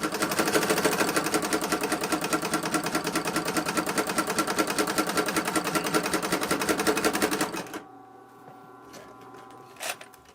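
Industrial walking-foot leather sewing machine running at speed with a fast, even clatter from its needle and foot mechanism for about seven and a half seconds, then stopping. Its motor hums faintly afterwards.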